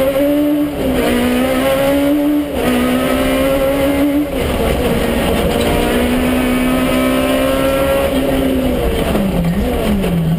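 Citroën Saxo Kit Car's four-cylinder engine at full throttle, heard from inside the cabin: it pulls hard through the gears with quick upshifts about one, two and a half and four seconds in, holds high revs, then near the end the revs drop and flare in short swoops as it downshifts under braking.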